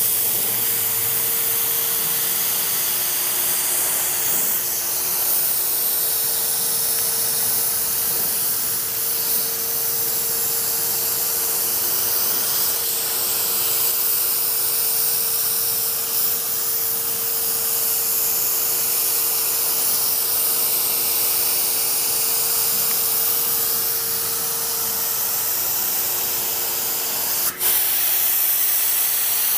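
LVLP paint gun hissing steadily as it sprays a wet coat of clear onto a car door, with a steady low tone under the hiss. The hiss breaks off for an instant near the end and resumes as the trigger is released and pulled again.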